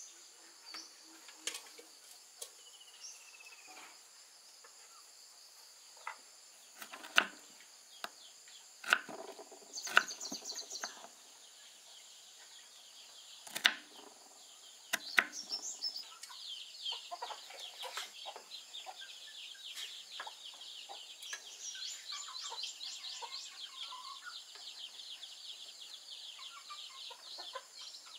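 A kitchen knife chops pineapple on a wooden cutting board in a few sharp, separate knocks, the loudest sounds here. From about halfway on, insects chirp in a steady high chatter, and a chicken clucks.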